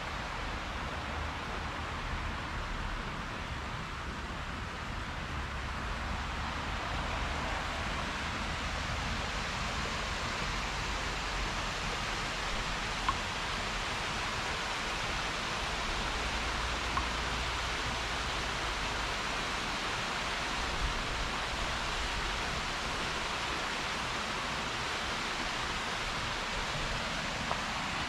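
Mountain creek cascading over rocks: a steady rush of water, growing slightly louder over the first several seconds, with a low rumble underneath and a few faint ticks.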